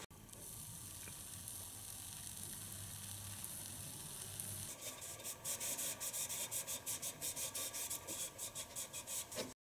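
Electrolytic etching of stainless steel: a vinegar-and-salt-soaked cotton swab wired to a 9-volt battery sizzling steadily on the bare metal. About five seconds in it gives way to quick rubbing strokes, about three a second, of a cloth pad wiping the tumbler, which stop abruptly near the end.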